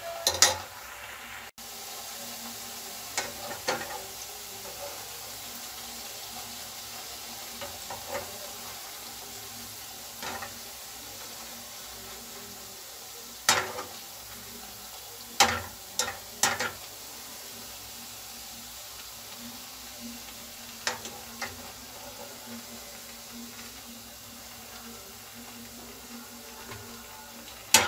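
Semolina golgappe (puris) deep-frying in hot oil in a kadhai: a steady sizzle. Occasional sharp taps and clinks break through as the wire skimmer turns the puris and lifts them out.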